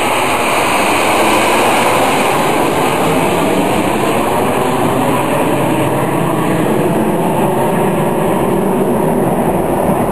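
Steady, loud rushing jet noise from the Snowbirds' formation of CT-114 Tutor jets flying overhead.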